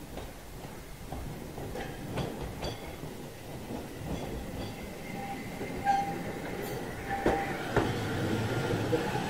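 Tram rolling slowly on rails: a rumble that grows louder, with a few sharp wheel clacks over rail joints and brief thin squeals from the wheels.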